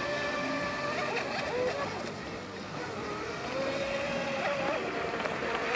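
Pro Boat Shockwave 26 RC speedboat with a brushless electric motor, running flat out across the water: a high motor whine that wavers up and down in pitch over a steady hiss.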